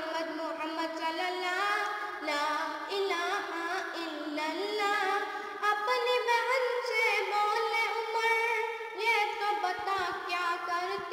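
A boy singing a naat, an Urdu devotional song in praise of the Prophet, with a single voice and no accompaniment heard. He holds long notes that waver and slide between pitches.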